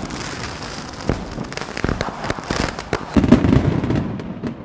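Dense crackling with many sharp pops over a hiss, swelling louder with a deeper rumble about three seconds in, then thinning to scattered pops toward the end.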